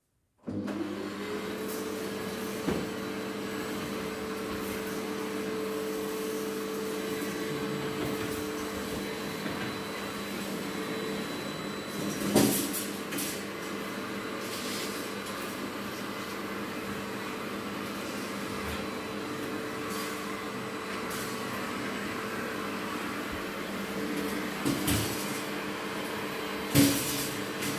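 Vacuum cleaner switched on about half a second in, its motor spinning up and then running steadily. A few knocks and clatters sound over it, loudest about 12 seconds in and near the end.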